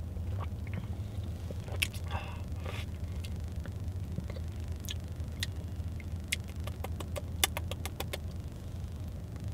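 Low steady hum of a car cabin, with soft sounds of a man drinking from a plastic soda bottle at the start and about two seconds in. Scattered small clicks follow, most of them in the second half.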